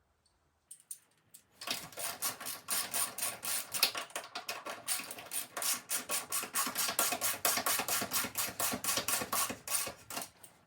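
Hand ratchet wrench clicking in rapid, even strokes, about five a second, as bolts are run in. It starts about a second and a half in and stops just before the end.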